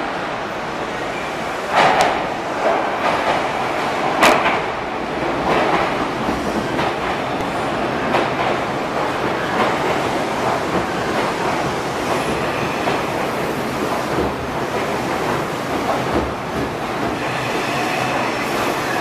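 Odakyu Romancecar limited express train running into an underground platform and slowing: steady wheel rumble echoing off the station walls, with two sharp clacks about two and four seconds in and a faint high squeal near the end as it brakes.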